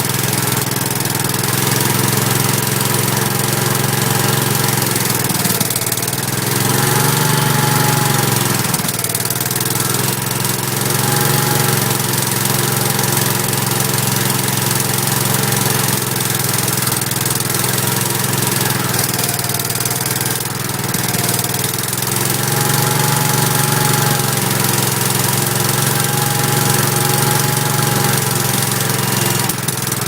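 Kohler K341 16 hp single-cylinder engine of a Gravely 5865 walk-behind tractor running steadily after its first start, its speed dipping and picking up again briefly twice.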